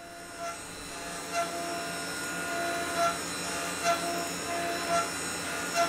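Tormach CNC mill cutting metal round bar held in the microARC 4th axis: a steady spindle and cutter whine under flood coolant, with a short louder surge about once a second as the tool sweeps back and forth on the scalloping passes.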